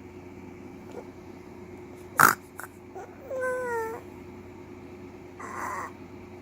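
A sleeping five-month-old baby making small noises: a sharp short sound about two seconds in, then a brief wavering whimper in the middle, and a short breathy sound near the end.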